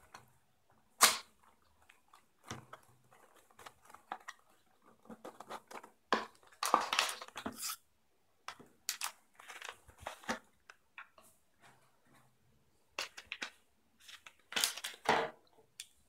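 A small cardboard box being opened and handled while a fidget cube is taken out of it: irregular rustling and scraping of cardboard, with a sharp click about a second in and a longer scrape about halfway through.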